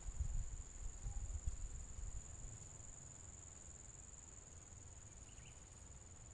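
Steady high-pitched drone of insects chirring. Low rumbling wind noise on the microphone during the first two seconds or so.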